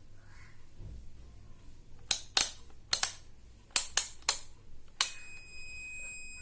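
About eight sharp clicks in quick succession, typical of handling a Mastech digital multimeter, then about five seconds in its piezo buzzer starts a steady high-pitched beep.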